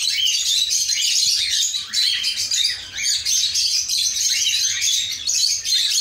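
A colony of cockatiels chirping and calling all at once: a dense, unbroken chatter of many short overlapping calls that glide up and down.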